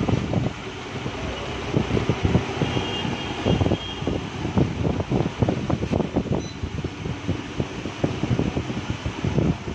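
LCD separator machine running with a steady mechanical noise, with rapid, irregular low scraping and knocking as cracked touch glass is worked off a phone display on its heated plate.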